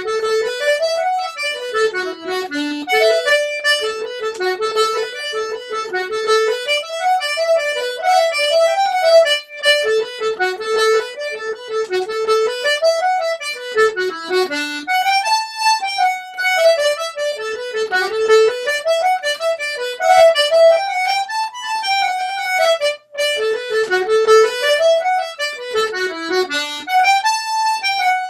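Two button accordions playing a fast Irish reel together, a quick unbroken run of melody notes.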